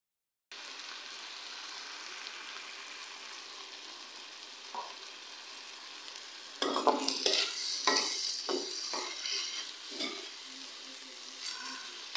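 Moong dal frying in hot oil and masala, sizzling steadily. About halfway through, a metal spoon starts stirring and scraping the pan in a run of louder strokes, as the dal is roasted (bhuna).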